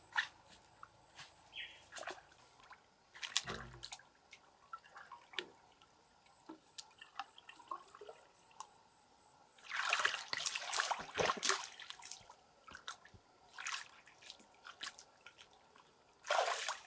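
Water dripping and trickling, with scattered small splashes. There is a denser flurry of splashing about ten seconds in, and again near the end.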